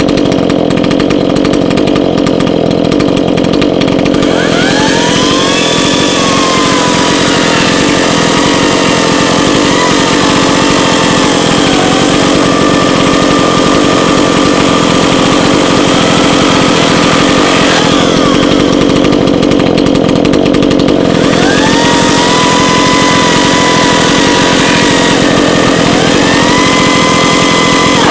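Echo gas chainsaw's two-stroke engine idling, then revved up about four seconds in and cutting into a log for over ten seconds. It drops back to idle for a few seconds, then is revved up twice more near the end.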